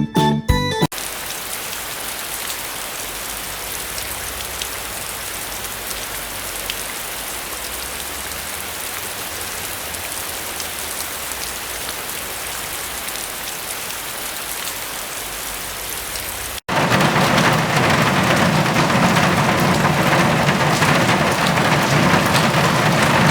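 Steady rain falling, an even hiss, after a snatch of guitar music that ends about a second in. After a sudden cut about two-thirds of the way through, the rain is much louder and fuller: a heavier downpour.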